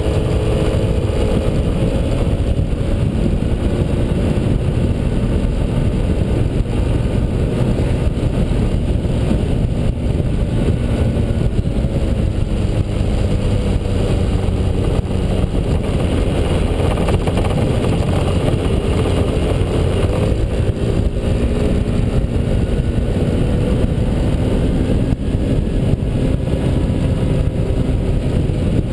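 Honda Elite 80 scooter's single-cylinder four-stroke engine running under way, its pitch drifting up and down with speed, under heavy wind rush on a camera mounted on the front of the scooter.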